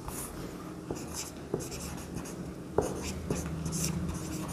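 Marker pen writing on a whiteboard: a run of short, scratchy strokes, with a few sharp taps as the tip lands on the board.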